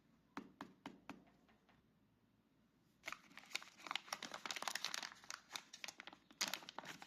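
Hook-and-loop cable tape being handled: a few light clicks, then about three seconds in a faint, dense crackling and crinkling starts and keeps going.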